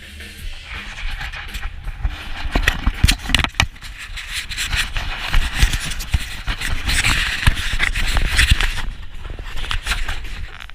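Footsteps crunching on packed snow, mixed with rubbing and knocking as the handheld action camera is handled and turned, giving a run of irregular sharp crunches and scrapes.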